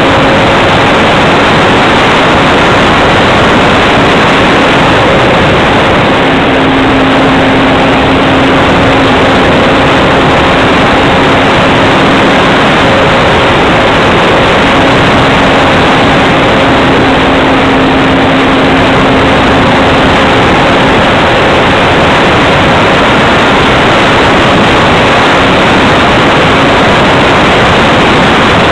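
Great Planes Gee Bee Model R RC plane's motor and propeller running in flight, with loud wind rush over the canopy-mounted microphone. A steady droning note runs under the rush and comes up more strongly twice.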